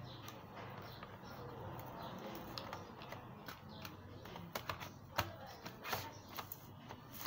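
Scattered light clicks and taps of a laptop DVD writer being handled and slid into its optical-drive bay in a Lenovo Ideapad 110's plastic case, the sharpest click about five seconds in.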